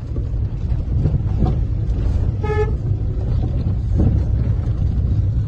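Steady low road and engine rumble inside a moving car's cabin, with one short vehicle horn toot about halfway through.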